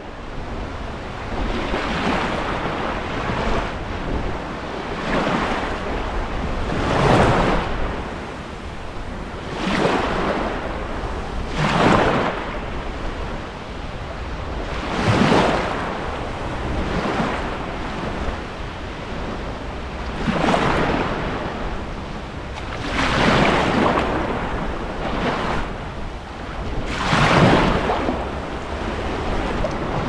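Small sea waves washing up onto a sandy shoreline right at the water's edge. Each wash swells and fades, about every two to three seconds.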